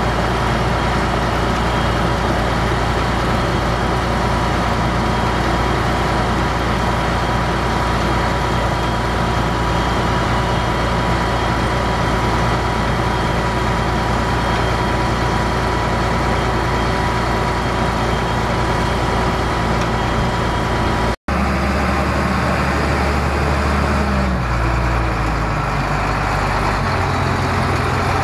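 Heavy tow truck's engine running steadily. About three-quarters of the way through there is an abrupt cut, after which the engine note sits lower, then steps up again.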